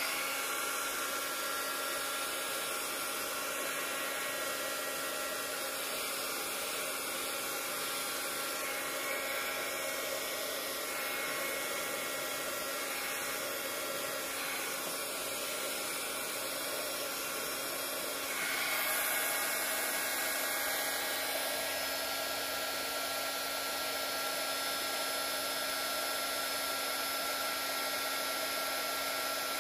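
Handheld electric heat gun running steadily, a fan-driven blow with a steady hum, aimed over freshly poured epoxy resin in a coaster mold to pop the surface bubbles. It gets a little louder about two-thirds of the way in.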